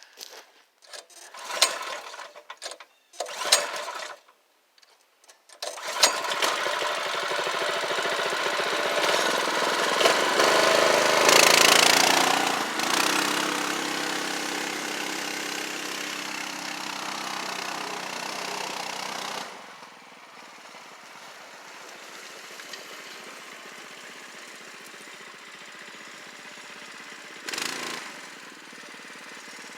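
A few short knocks and clatters, then about six seconds in the Predator 212cc single-cylinder four-stroke engine of a re-engined ATV starts and runs. It grows louder to a peak just before the middle, then drops to a quieter steady running about two-thirds of the way through.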